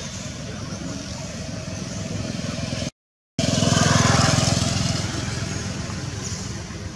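Steady rumble of motor traffic. About three seconds in the sound cuts out completely for a moment, then a motor vehicle passes close, growing louder for about a second before fading away.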